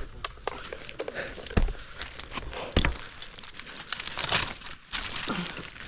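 Irregular scraping, rustling and knocking from a climber working his way up a tree trunk, with a few heavier thumps and a longer scrape about two thirds of the way through.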